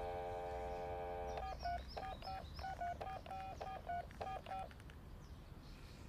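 Telephone dial tone for about the first second and a half, then a quick run of about ten touch-tone (DTMF) keypad beeps as a number is dialled.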